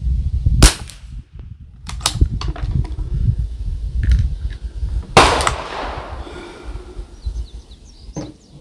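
Two sharp rifle shots, about 4.5 seconds apart: one just after the start and a louder one about five seconds in that rings on briefly. Fainter clicks come between them, over a steady low rumble.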